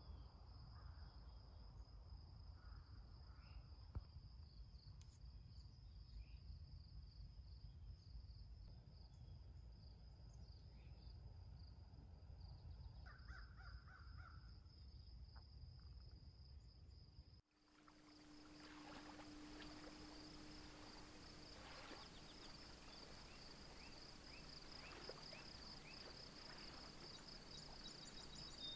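Faint outdoor ambience: a steady high insect trill with a few short, distant bird calls. The background changes abruptly about two-thirds of the way through, where the trill turns to a pulsing chirr.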